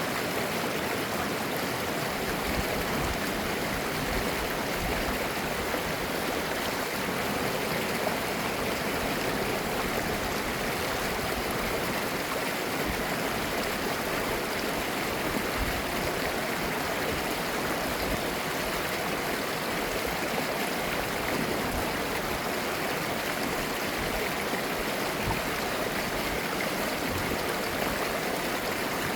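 Mountain stream flowing over rocks, a steady gurgling rush of water.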